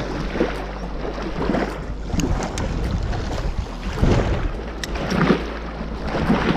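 Wind buffeting the microphone with a low rumble, over small choppy waves lapping and splashing against a rocky shoreline in uneven surges.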